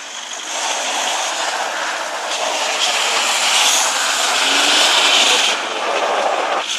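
Vehicle straining during an off-road tow recovery: a loud rushing roar that builds over the first seconds and cuts off suddenly near the end.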